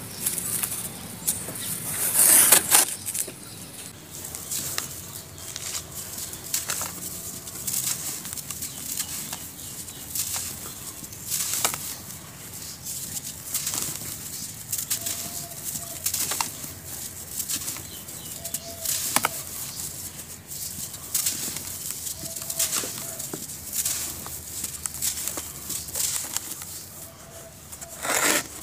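Hands crushing and crumbling dry, molded chunks of grey powder in a plastic bucket: a run of crisp crunches and crumbling, with a loud crunch about two seconds in and another near the end.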